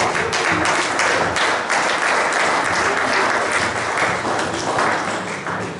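Church congregation applauding, a steady patter of many hands clapping that thins and dies away near the end.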